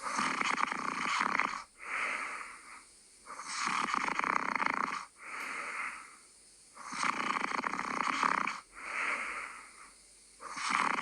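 A person snoring in a steady rhythm. Long, loud snores alternate with shorter, softer ones, one cycle about every three and a half seconds.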